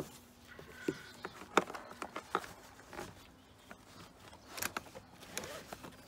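Vehicle seat belt webbing rustling and sliding as it is fed through a car seat's belt path, with scattered small clicks and knocks from the belt's metal latch plate and the seat's plastic shell.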